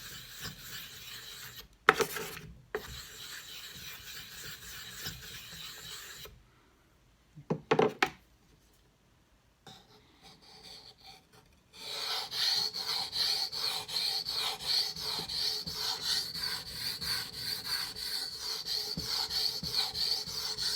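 A small stone rubbed back and forth on a wet 4000-grit whetstone to raise a slurry, a gritty scraping. It is broken by two knocks about two seconds in, and by a quiet pause with a brief clatter around eight seconds. Louder, quick, even scraping strokes then run through the last nine seconds.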